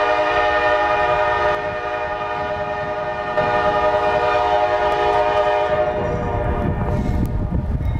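Diesel freight locomotive sounding its multi-note air horn in a long steady blast that dips slightly in volume for a couple of seconds, then cuts off about six seconds in, leaving the low rumble of the approaching train.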